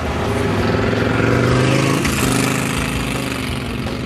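A motorcycle passing close by at speed and riding off down the road. Its engine note climbs, then drops in pitch about two seconds in as it goes past.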